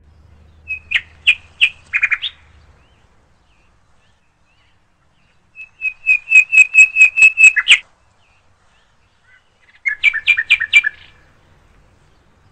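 Cat chattering: three bursts of rapid, high, staccato chirps, about five to six a second, the middle burst the longest. This is the chatter a cat makes while fixed on birds or other prey it sees.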